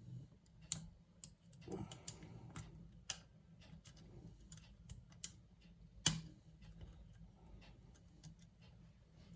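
Light, irregular metallic clicks and ticks of a lock pick and tension wrench working the pins of a challenge lock during single-pin picking, with one sharper click about six seconds in.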